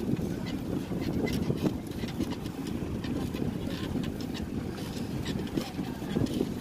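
Steady low rumble of a moving vehicle ride, with scattered small clicks and rattles over it.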